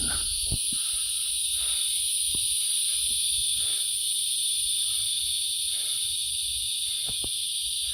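Chorus of cicadas buzzing steadily, a high-pitched drone that holds level without a break.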